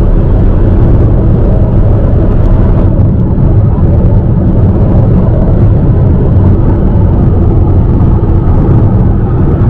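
A car driving on a highway, heard from inside the cabin: steady, loud, low road and engine noise.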